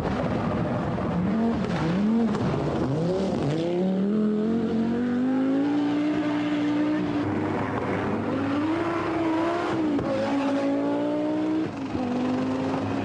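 Audi Quattro rally car's turbocharged five-cylinder engine revving hard at full race pace. The pitch bends quickly up and down a few times, then climbs long and steadily as the car accelerates, dropping back sharply on lifts and gear changes.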